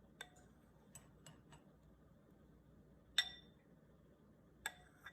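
Light clinks of a spoon against a dish as foam is skimmed off custard. There are several scattered taps, each with a brief high ring, the loudest about three seconds in.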